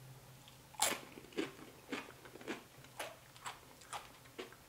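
A person biting into crunchy food and chewing it while tasting guacamole: one loud crunch, then about seven crunching chews, roughly two a second.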